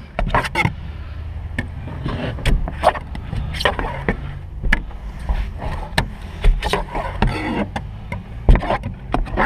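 Irregular knocks, taps and scrapes of a hand-held plastic squeegee tool working wet window-tint film along the bottom edge of a car's rear window and against the rear deck, with one sharper knock near the end, over a steady low hum.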